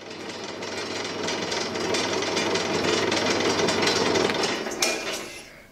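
Pillar drill running and boring a hole through a wooden knife-handle scale, a steady mechanical whirr and rattle with a low hum. Near the end there is a brief sharp sound, and the noise then dies away as the drill winds down.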